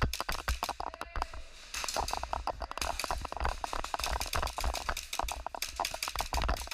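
Dense, irregular clicks and sharp snaps from an indoor airsoft game: gas pistols and rifles firing, and BBs striking walls and barricades.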